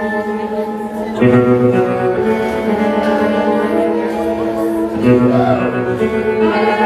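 Live band playing a song, with held chords and sustained notes that change about a second in and again about five seconds in.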